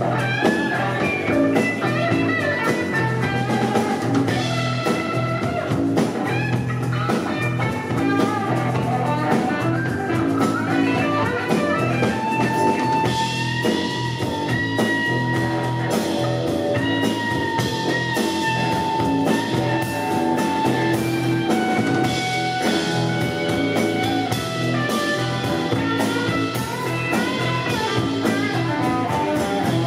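Live rock band playing an instrumental passage: electric guitar lines over bass guitar, drum kit and tambourine.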